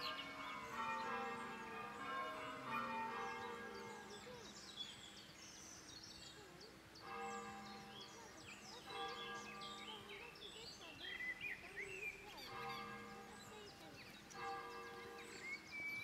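Church bells ringing, a dense peal at first and then separate strokes every second or two, with birds singing over them.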